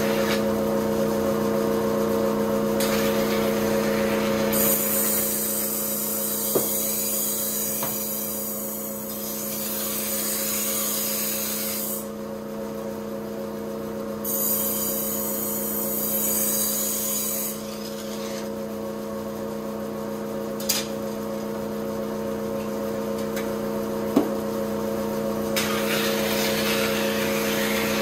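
Motor-driven rotating whetstone wheel running with a steady hum while a kitchen knife blade is ground against it. A hissing grind swells twice for several seconds as the blade is pressed to the stone, with a few sharp clicks.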